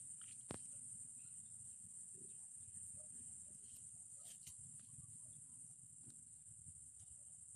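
Near silence: a faint, steady high-pitched hiss, with one soft click about half a second in.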